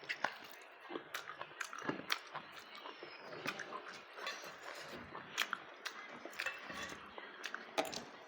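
A person chewing a meal of rice with raw onion and cucumber close to the microphone: irregular crunches and wet mouth clicks throughout.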